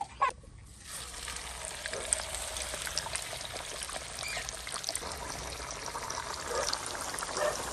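Chicken deep-frying in hot ghee in a small kadhai: a steady sizzle with scattered crackles and pops, starting about a second in.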